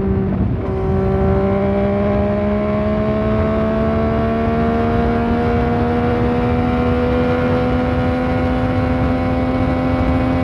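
Yamaha MT-09 Tracer's 847 cc inline-three engine running through a Fuse Racing aftermarket exhaust while riding. Its note breaks briefly about half a second in, as at a gear change, then climbs slowly and steadily as the bike gains speed.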